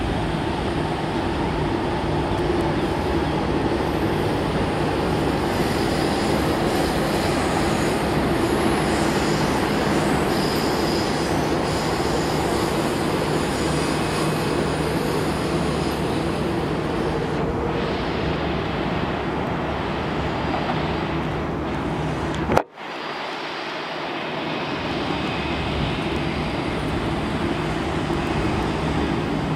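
Jet airliner engines running steadily with a constant hum as a twin-engine widebody taxis. About three-quarters of the way through, the sound breaks off abruptly with a click, then steady jet engine noise from an Airbus A350 climbing out after takeoff builds up again.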